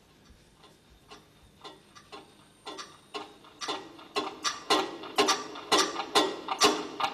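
A rhythmic series of sharp percussive strikes, about two or three a second, starting faint and swelling steadily louder, as the stage goes to blackout.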